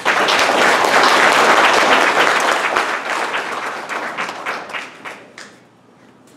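Audience applauding. It is loud at first, then thins out and dies away over about five seconds.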